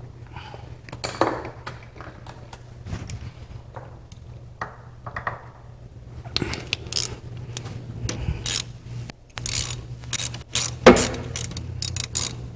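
Ratchet wrench clicking in short irregular runs, with metal tool clinks, while working on an air-cooled VW engine's distributor. A steady low hum runs underneath.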